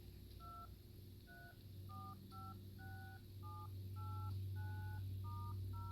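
iPhone emergency-call keypad playing touch tones as its keys are tapped: about ten short two-note beeps, one every half second or so, each key registering on the newly replaced screen. A low steady hum runs underneath.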